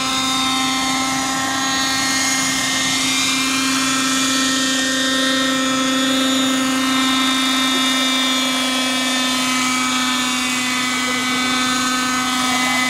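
Hirobo JetRanger radio-controlled model helicopter hovering low, its smoking glow-fuel engine running at a steady pitch with a dense stack of overtones.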